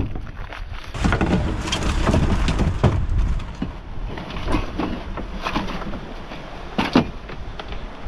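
Handling noise from an old surf fishing rod and reel: scattered knocks and rattles, one sharper knock near the end, over a low steady rumble.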